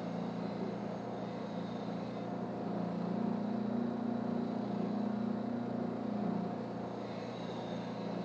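Power wire wheel running steadily, a continuous motor hum with a faint high whine.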